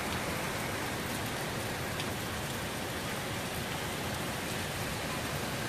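Steady hurricane rain falling on the lawn and the road, an even hiss with no let-up.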